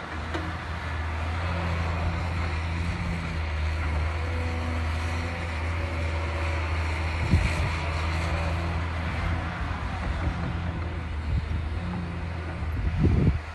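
Hyundai HX300 crawler excavator's diesel engine running steadily under load as it digs and swings, a low, even drone. A low thud about seven seconds in and another near the end.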